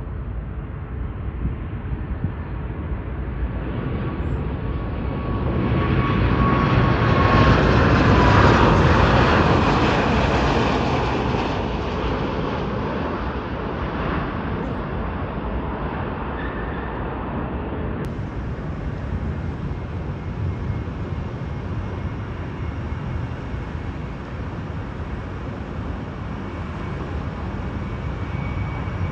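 Airliner passing by, its engine noise swelling to a peak about eight seconds in, where a whine drops in pitch, then fading to a steady distant rumble.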